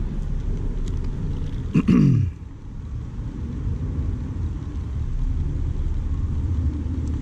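Steady low rumble, like wind on the microphone or passing traffic. About two seconds in, a short vocal sound from a man falls in pitch.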